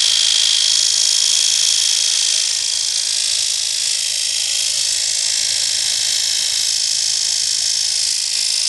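Failing alternator running with a loud, steady high-pitched whine and hiss; the alternator is bad.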